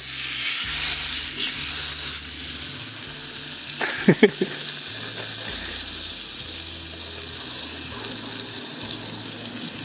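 A thick beef steak sizzling hard on a hot Yokozawa Teppan iron griddle plate, the juices spitting even at the plate's edges, as a loud, even hiss that eases slightly after the first couple of seconds. Two or three short, sharp sounds come about four seconds in.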